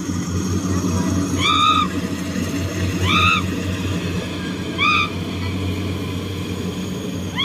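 Rice combine harvester's diesel engine running steadily at a distance, a low pulsing hum. Over it a bird gives three short rising-and-falling calls, about a second and a half apart.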